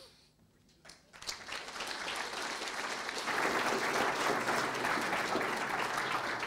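Audience applauding, starting about a second in and growing louder.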